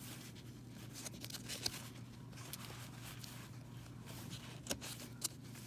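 Old cardboard trading cards being thumbed through by hand, one sliding off the stack after another: faint scattered rustles and soft clicks, with a few sharper card snaps near the end, over a low steady hum.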